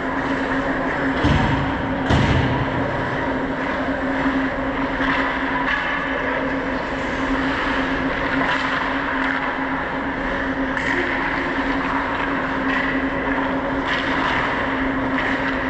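Ice hockey play heard from a player's camera on the rink: a steady rushing noise of skating with a constant hum, broken by a few sharp knocks, two of them heavy thumps about one and two seconds in.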